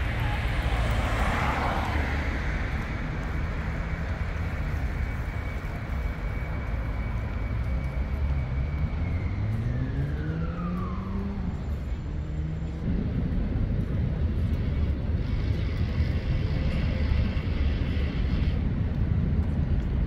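Steady city traffic noise. About eight seconds in, a passing vehicle's whine falls in pitch as it goes by, and the rumble grows louder a few seconds later.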